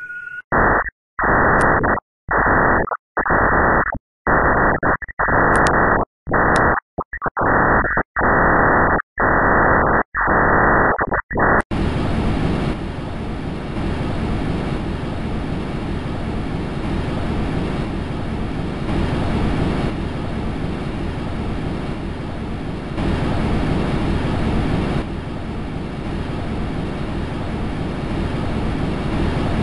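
Static-like hiss from a NASA space recording played as sound: first a run of choppy bursts broken by short silences, then from about twelve seconds in a steady, brighter hiss.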